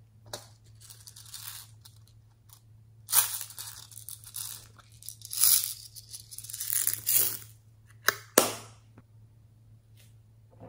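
Small plastic pearl beads rattling out of a plastic bead case as they are poured, in several noisy bursts, followed by two sharp clicks about eight seconds in.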